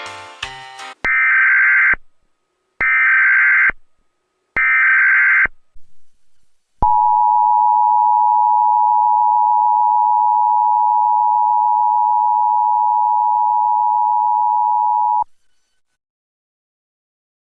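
The end of a light instrumental tune gives way to three loud, one-second bursts of buzzing digital data tones: an Emergency Alert System SAME header. Next comes the EAS attention signal, a steady two-tone alert (853 and 960 Hz sounding together). It holds for about eight seconds and cuts off suddenly.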